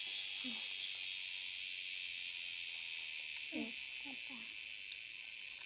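Insects, crickets among them, chirping in a steady high-pitched chorus with a fast regular pulse. A few faint short voice-like calls come through about half a second in and again around three and a half to four and a half seconds in.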